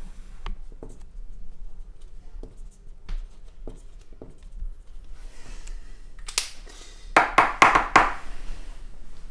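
Marker pen writing on a whiteboard. There are light taps and faint strokes at first, then about seven seconds in comes a quick run of louder, scratchy squeaking strokes.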